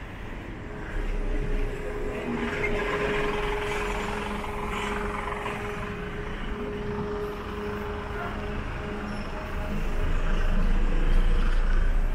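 Road traffic: a motor vehicle running close by, with a steady engine hum and a low rumble that grows louder near the end as it passes.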